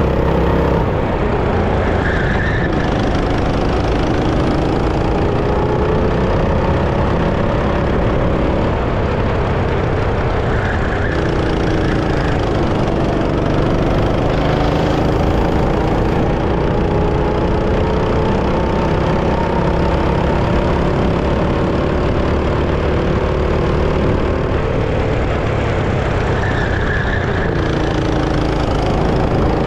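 Go-kart engine running under load. Its pitch climbs steadily for several seconds as the kart accelerates, then drops sharply as it slows, about three times over, above a constant low rumble.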